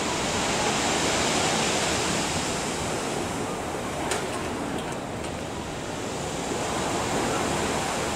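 Steady rushing of sea waves, with wind on the microphone and a faint click about four seconds in.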